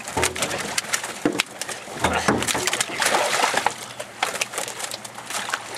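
Irregular sharp knocks and bumps with rustling and splashy noise as muskies are handled in a trap net on the floor of an aluminum boat.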